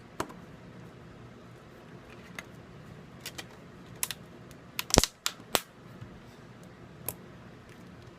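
Irregular sharp clicks and taps of small phone parts and tools being handled during smartphone reassembly, with a quick run of louder clicks about five seconds in.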